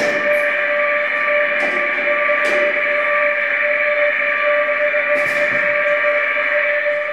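Droning experimental music: a steady held tone with higher overtones sustained throughout, and a few short clicks scattered over it.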